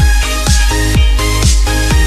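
Electronic dance music with a steady kick-drum beat, about two beats a second, under repeating synth chords.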